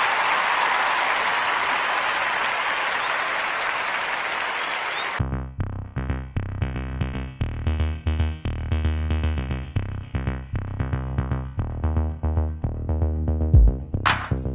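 A steady rushing noise that slowly fades for about five seconds, then electronic background music with a drum-machine beat and heavy bass.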